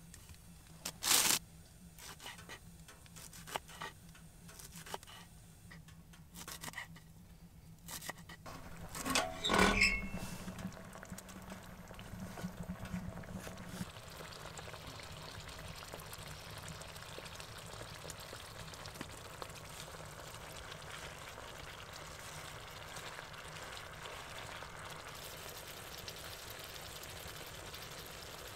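A few scattered knocks and handling sounds on a wooden cutting board, then a louder clatter about ten seconds in. After it comes a steady sizzle of cherry tomatoes cooking in butter and oil in a frying pan on a wood stove.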